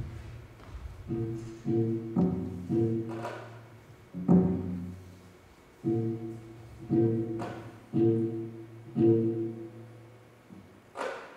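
Dance accompaniment music: slow, low plucked string notes, one at a time, each struck sharply and left to ring and die away. A sharp percussive click comes just before the end.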